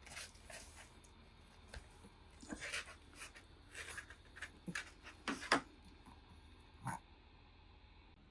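A long-coat Chihuahua sniffing and panting in short, breathy bursts scattered over several seconds, the loudest a pair about five and a half seconds in.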